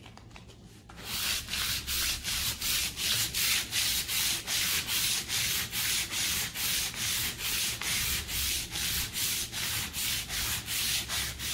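Sandpaper rubbed by hand in short, quick back-and-forth strokes over a painted MDF picture frame, about three to four strokes a second, starting about a second in. The paint is being worn through in small straight strokes for a distressed shabby-chic finish.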